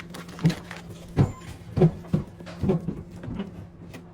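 About five dull thuds and knocks in the first three seconds, over a steady low hum.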